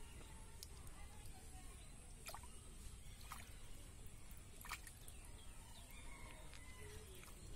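Faint wet sloshing of a hand groping in a muddy, water-filled hole, with a few sharp clicks and a steady high hiss.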